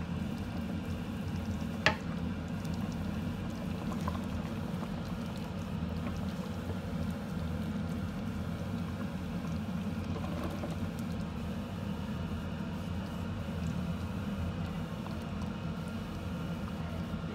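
Coconut-milk sauce with chicken pieces simmering and bubbling in a stainless steel pot, a steady low bubbling. One sharp tap about two seconds in.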